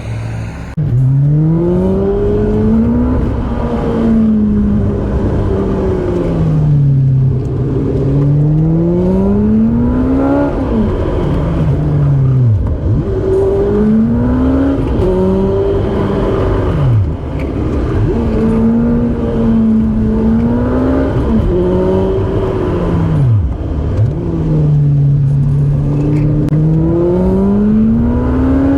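Car engine revving hard and easing off again and again, its pitch climbing and then dropping suddenly at each gear change, as it is driven briskly through a run of curves.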